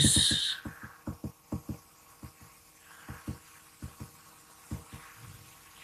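Runs of quick, low thumps, several a second, as slides are paged back one after another with short pauses between runs. A brief hiss at the very start.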